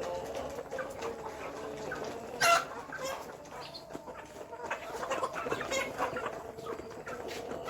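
Chickens clucking, several short calls overlapping, with one louder, sharper call about two and a half seconds in.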